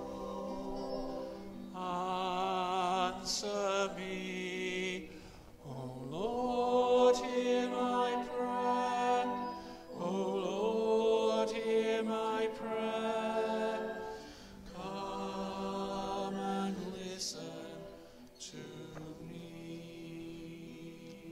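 Pre-recorded sacred singing for the offertory: a singing voice with vibrato in long held phrases, with short breaks between them, over a steady sustained accompaniment.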